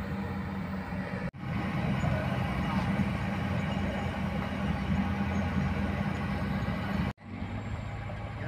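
Heavy diesel engines running steadily: a Kobelco excavator's at first, then a dump truck driving past. The sound drops out suddenly twice, about a second in and near the end, where the recording is cut.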